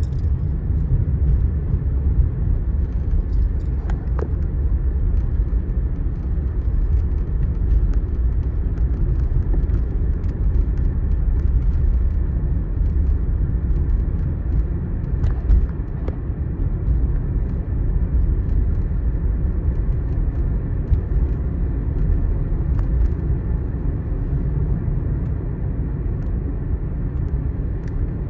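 A steady low rumble with no speech, its weight in the bass, with a few faint clicks.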